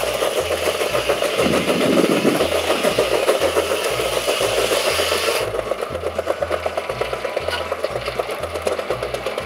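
1912 Case 110 steam traction engine running under load with a steady rhythmic exhaust beat, driving a sawmill whose blade rasps through a log. The cutting stops suddenly about five and a half seconds in, while the engine beat keeps going.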